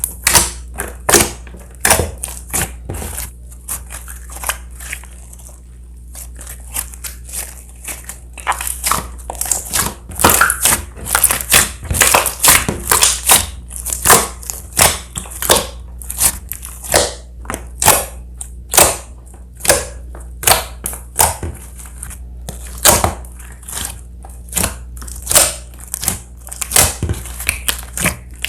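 Slime being mixed and squeezed by hand, making many irregular sharp pops and crackles over a low steady hum. The pops are sparse at first and come thick and fast from about eight seconds in.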